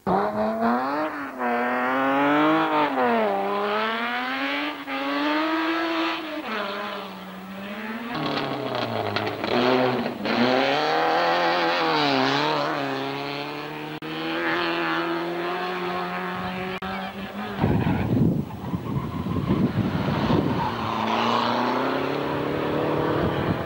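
Racing hatchback engines revving hard as the cars climb, the pitch rising and dropping again and again through the gear changes. After an abrupt cut about three-quarters of the way through, another car follows with rougher, noisier engine and tyre sound.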